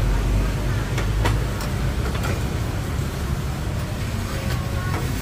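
Steady low rumble of road traffic, with a few light clicks and knocks of a spoon and knife on a wooden board as a martabak manis is spread with butter and cut.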